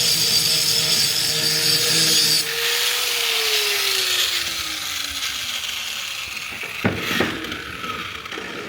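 Power grinder grinding an axe. About three seconds in, its whine begins falling in pitch and the sound fades as the grinder spins down. Two sharp knocks follow near the end.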